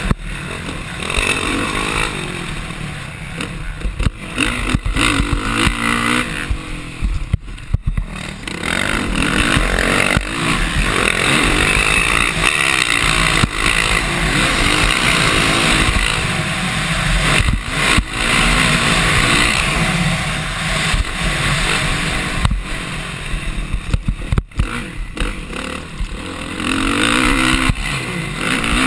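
Motocross dirt bike engine running hard, revving up and falling back again and again through the lap, close to the microphone with heavy rushing noise over it.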